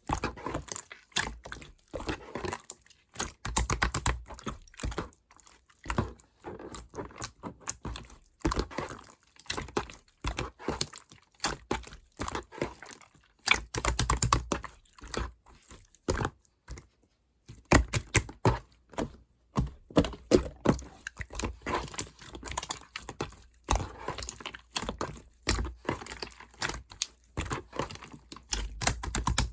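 Clear slime mixed with clay being squished and pressed by hand: a dense, irregular run of sticky clicks and crackles, louder in a few clusters.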